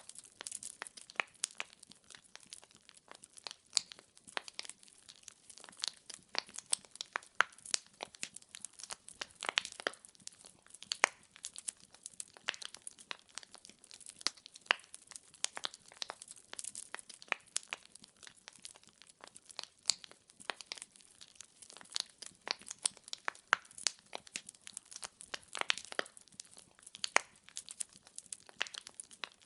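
Wood fire crackling in a fireplace: many irregular sharp pops and snaps of burning logs over a faint hiss.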